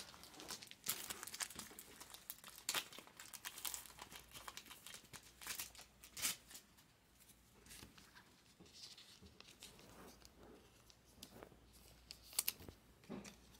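Clear plastic card sleeves crinkling and rustling in short, irregular crackles as trading cards are slid into them by hand.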